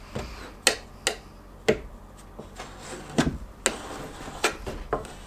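Putty knife working glazing putty onto the glass edge of an old wooden window sash, giving a scattered series of light clicks and taps as the blade touches the glass and frame.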